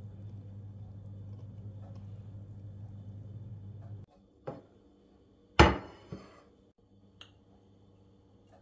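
Kitchenware set down with one loud, ringing clank about halfway through, with a lighter knock just before and a couple of light clinks after. Before that a steady low hum runs and cuts off suddenly.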